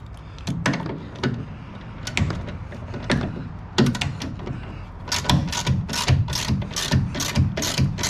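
Hand ratchet clicking as bolts are tightened: a few scattered clicks at first, then a steady run of about three strokes a second from about five seconds in.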